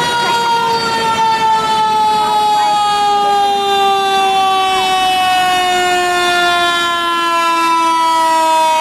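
Fire engine siren sounding one long, loud wail that falls slowly and steadily in pitch as Engine 125 approaches.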